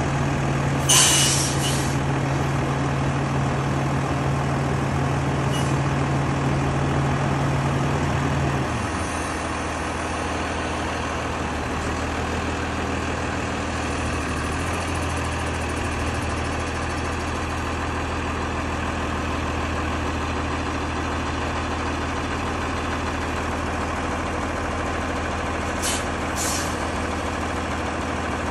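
Freightliner side-loader garbage truck's diesel engine running steadily at low speed, with a short air-brake hiss about a second in and two more near the end. A higher steady hum from the truck drops away about nine seconds in.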